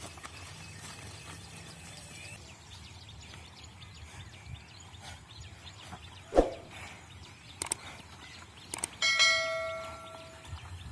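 A metal bell-like ring, struck once about nine seconds in and dying away over a second or so. Before it come a sharp knock and a few light clicks.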